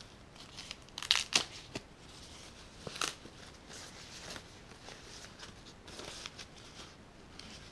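White paper packing crinkling and rustling as it is unwrapped by hand, with sharper crackles about a second in and again near three seconds.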